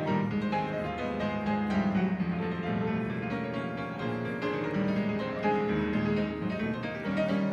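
Instrumental piano music played as a soundtrack, a steady flow of notes without a voice.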